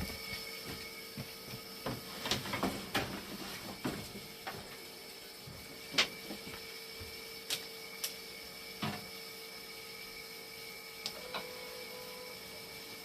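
Scattered clicks and knocks of parts being handled and fitted back onto a hemodialysis machine, over a steady electrical hum. The loudest knock comes about six seconds in.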